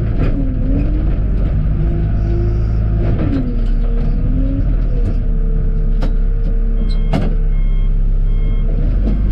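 John Deere 310G backhoe's four-cylinder diesel engine running steadily under load, with its hydraulic whine rising and falling as the bucket is worked to find traction on an icy slope. Two sharp knocks come about six and seven seconds in.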